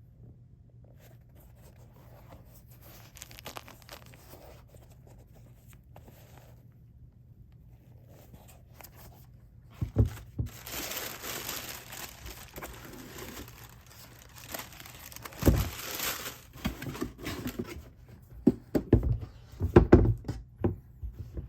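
Wrapping paper in a sneaker box rustling faintly, then crinkling loudly for several seconds as it is handled, with a few dull thumps near the middle and toward the end.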